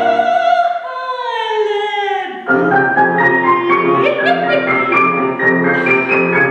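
Classical soprano singing with grand piano accompaniment. She holds a high note with vibrato, then slides down in pitch. About two and a half seconds in, the Steinway grand piano takes over with quick, rhythmic chords.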